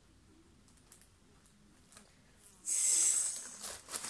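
Plastic mailing bag crinkling as it is handled: a sudden loud crinkle near the end, then a few softer rustles.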